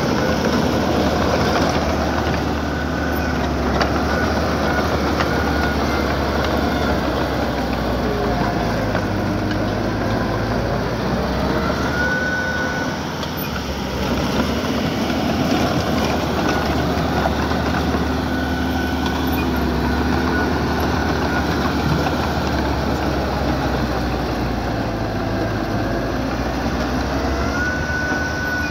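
Diesel engine of earthmoving machinery running steadily, with a few brief high squeals now and then.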